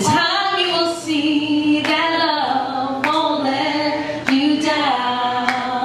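A woman singing unaccompanied into a microphone, with long held notes that waver in pitch, while sharp single claps land roughly once a second in time with her.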